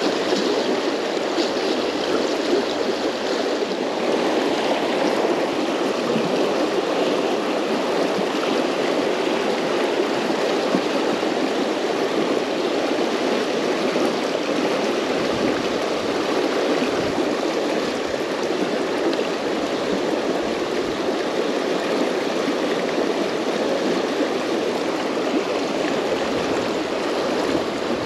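Fast-flowing river running over a shallow rocky run: a steady, even rush of water.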